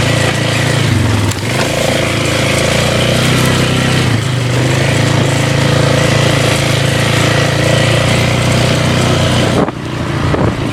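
Four-wheeler (ATV) engine running steadily under way on a trail, its pitch dipping briefly twice as the throttle eases, then changing near the end.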